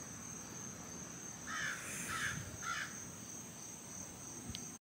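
Outdoor ambience: a steady high insect drone, with a bird calling three times in quick succession about two seconds in. The sound cuts off abruptly near the end.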